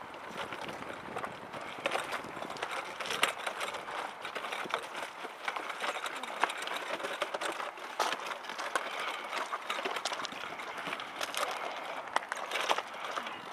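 Manual wheelchair wheels and footsteps crunching over loose gravel as the chair is pushed along: a steady crunching full of small clicks of shifting stones.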